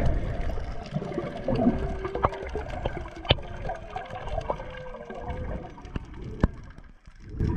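Humpback whale song heard underwater: long, wavering calls that glide slowly in pitch, over a low rush of water against the camera and a few sharp clicks.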